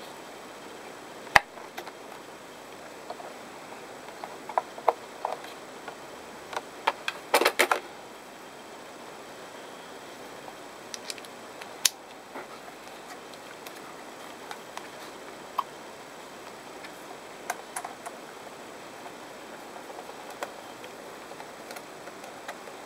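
Scattered clicks and taps of plastic and metal from handling a precision screwdriver kit, fitting a screw bit into the screwdriver handle. The loudest are a single sharp click about a second in and a quick cluster of clicks around the middle, over a steady low hiss.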